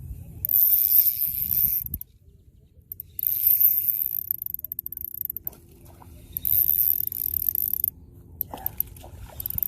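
Shimano Stratic 1000 spinning reel being cranked in three bursts of about a second and a half each, pausing in between, with braided line winding on. A few faint clicks follow near the end.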